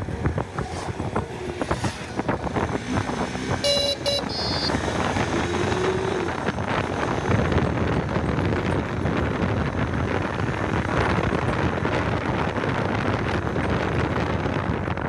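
Wind rush and road noise from a moving motorcycle. A vehicle horn gives two short toots about four seconds in.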